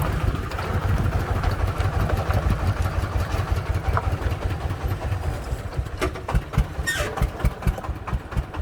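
Three-wheeled công nông truck's single-cylinder diesel engine chugging at low revs under load, with low uneven thumps and a few sharp rattles from the truck as it goes over rough ground.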